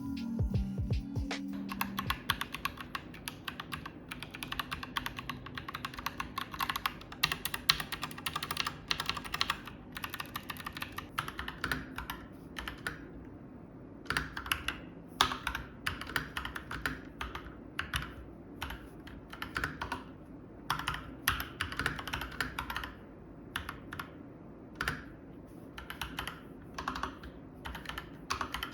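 Typing on a custom mechanical keyboard with Gazzew Boba U4T tactile switches: a fast, dense run of keystrokes, then from about halfway on shorter bursts of keystrokes with brief pauses between them. Background music fades out in the first couple of seconds.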